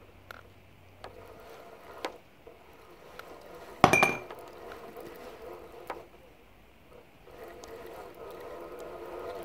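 A few faint clicks and one sharp clink with a brief ringing tone about four seconds in, the loudest sound here; a steady sound with several held tones builds near the end.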